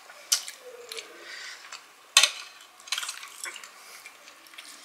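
Chopsticks clicking and scraping against plates while picking up momos: a few sharp clicks, the loudest about two seconds in.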